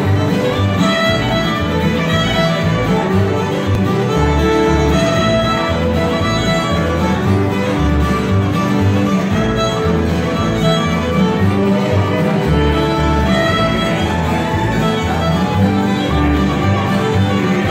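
Live acoustic bluegrass band playing a fiddle tune: fiddle leading over strummed acoustic guitars, with an upright bass plucking a steady beat underneath.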